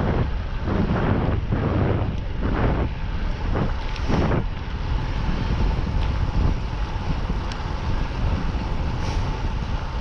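Wind buffeting the microphone of a camera riding along on a moving road bike, a heavy low rumble with gusty swells in the first half that settle into a steadier rush.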